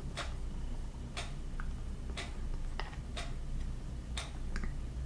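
Soft ticks about once a second, evenly spaced, over a low steady hum.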